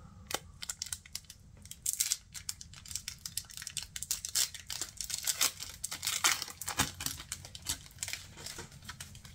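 Foil Pokémon booster pack wrapper being torn open and crinkled in the hands: a dense run of sharp crackles, thickest in the middle stretch.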